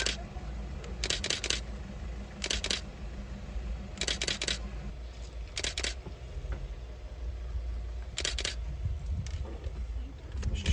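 A camera shutter firing in short rapid bursts of several clicks, a burst every one to two seconds, over a low steady hum.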